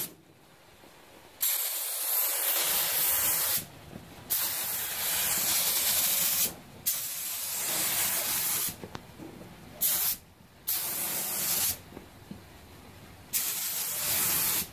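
Compressed-air paint spray gun with a small gravity-feed cup on top, hissing in repeated spray passes while laying the third and final coat of paint. There are five passes of about one to two seconds each and one brief puff, with short pauses between them.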